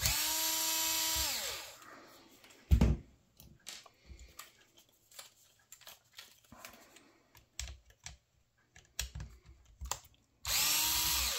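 Cordless Metabo electric screwdriver running, backing out the screws that hold the end plate of a copier drum unit: a steady whine for about a second and a half that winds down, then a second short run near the end. A single thump and a few small clicks come in between.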